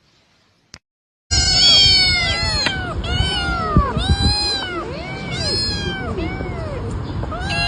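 Several cats and kittens meowing at once, many overlapping high calls that rise and fall, over a low rumble. They start suddenly after about a second of near silence broken by one click.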